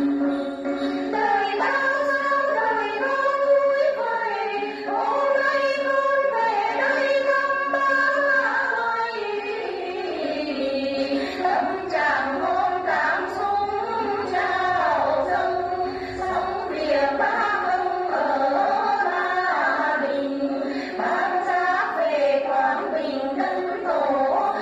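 Women singing a Tày Then song, accompanied by plucked đàn tính, the long-necked gourd lute of Then.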